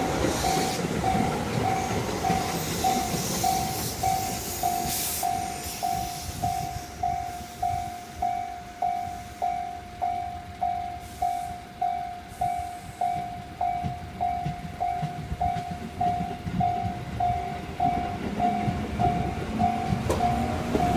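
Japanese level-crossing alarm bell ringing in an even electronic 'kan-kan' about twice a second, while a train runs over the crossing.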